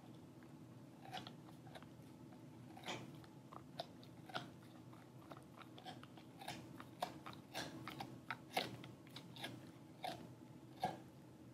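A dog chewing a rawhide strip: irregular crunches and clicks as it gnaws, coming thicker a little past the middle, with one sharp crunch near the end.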